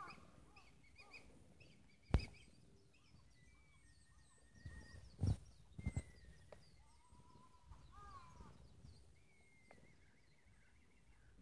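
Birds chirping and calling faintly in short gliding notes, with a wavering trill late on. A few sharp knocks cut in, the loudest about two seconds in.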